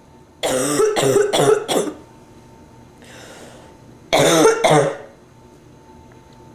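A woman with bronchitis coughing: a fit of about four coughs, a breath drawn in, then two more coughs.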